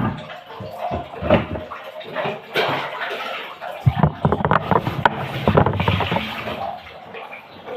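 Water splashing and sloshing with irregular knocks and clatter while a twin-tub washing machine is cleaned.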